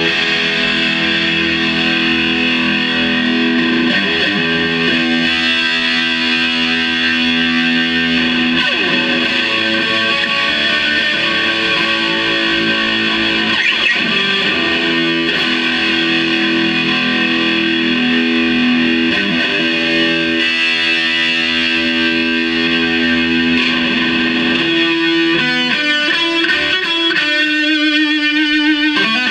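Electric guitar played through distortion, an instrumental passage of long sustained notes. Near the end the playing changes to a quicker, choppier pattern of repeated notes.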